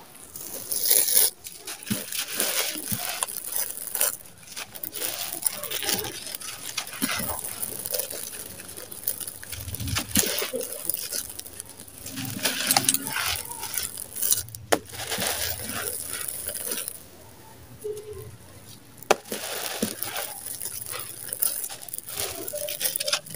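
Dry sand-cement chunks crushed and crumbled by hand: irregular gritty crunching and crackling, with a few sharp cracks as pieces break, and loose grit and dust pouring and pattering back onto the pile.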